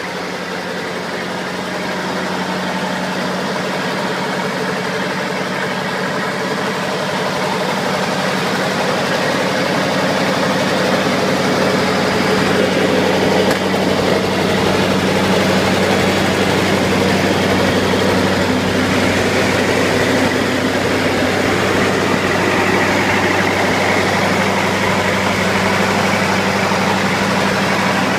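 Lincoln SA-200 Pipeliner engine-driven welder running steadily with a low, even engine hum, growing slowly louder over the first dozen seconds and then holding.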